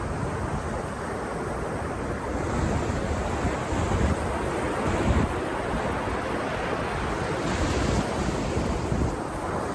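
Ocean surf washing onto a beach, swelling and easing, with wind buffeting the microphone.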